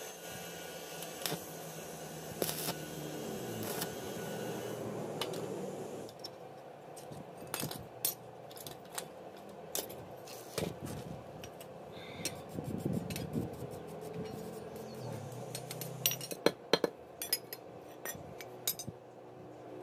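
Hand tools and small steel strips clinking and scraping against a steel block as the metal is bent with pliers: scattered light metallic taps, with a quick run of louder, sharp clinks about three-quarters of the way through.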